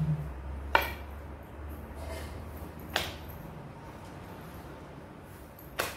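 Rolling pin working a sheet of shankarpali dough on a rolling board, with three short sharp knocks a couple of seconds apart over a faint low hum.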